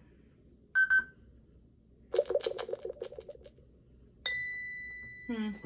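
Electronic lie detector game toy giving its reading: a short beep, then a fast run of electronic ticks lasting about a second and a half, then a single bell-like ding that rings on and fades.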